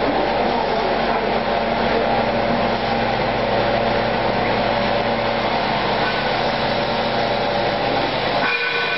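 Gas-type mesh-belt peanut roaster running: a steady, loud mechanical noise with several constant hum tones, with a brief drop in the low rumble about eight and a half seconds in.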